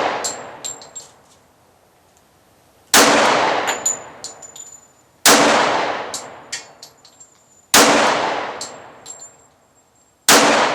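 Four shots from a Glock 30 .45 ACP pistol, fired about two and a half seconds apart. Each shot dies away over a second or two, with a few light metallic clinks after it.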